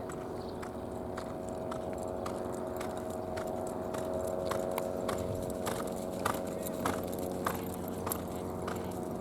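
A horse moving over arena ground: irregular sharp hoof clicks and knocks, coming faster and a little louder in the middle, over a steady hum.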